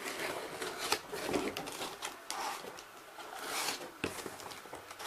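A cardboard shipping box being opened by hand: irregular rustling, scraping and tearing of cardboard and packing, with sharp clicks and knocks.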